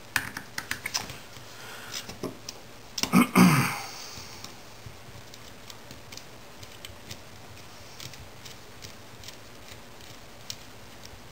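Small metal parts and hand tools handled on a work surface: a run of light clicks and taps, a louder clatter about three seconds in, then only faint occasional ticks.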